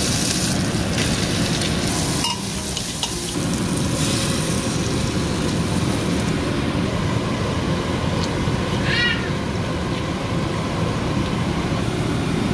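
Spices, ginger and garlic sizzling in hot oil in an aluminium pressure cooker, with a steel ladle stirring and a thick batter poured in, over a steady rushing noise. A short high-pitched cry about nine seconds in.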